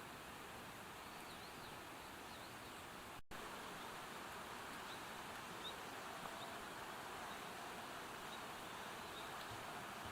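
Faint rural outdoor ambience: a steady hiss with small, short bird chirps scattered through it, and a momentary dropout about three seconds in.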